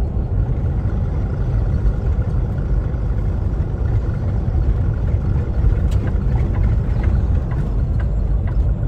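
Cab interior of a Kenworth T680 semi truck cruising on the highway: steady low rumble of the engine and tyres, with a faint steady whine above it.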